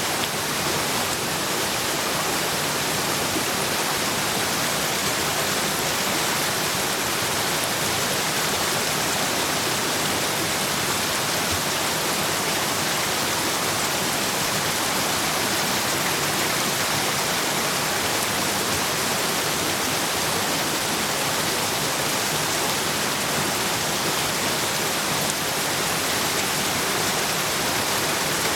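A steady, even hiss with no distinct pops or changes in level.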